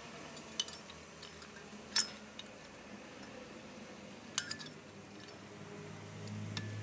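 A few light metallic clicks and clinks as new brake pads and their spring clips are fitted into a Renault Duster's front brake caliper bracket, the sharpest about two seconds in. A low hum comes up near the end.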